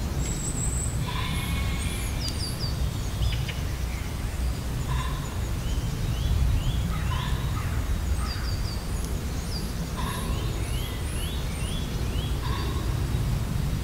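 Wild songbirds singing: short high chirps, descending notes and quick trills, with a shorter, lower call repeating every few seconds, over a steady low rumble.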